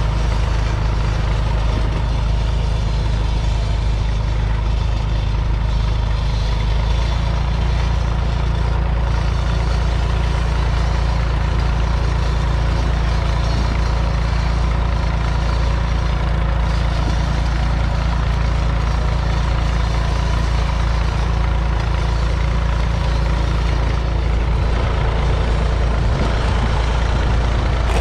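The Massey Ferguson 148's 2.5-litre three-cylinder diesel engine running steadily under load, pulling a two-furrow mounted plough through the ground.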